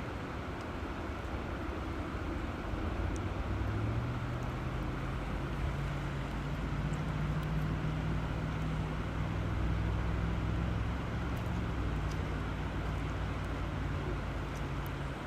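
Steady rushing of river water, with low held tones coming in about four seconds in and shifting pitch a few times.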